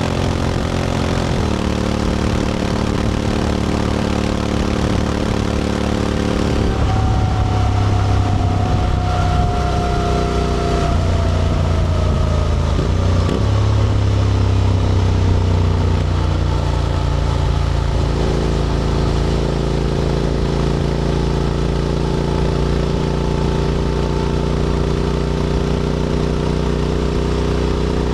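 Honda X-ADV 750's parallel-twin engine through an SC-Project titanium slip-on exhaust, running while riding. Its note drops about a second in, rises and falls through the middle, then settles to a steady cruise for the second half.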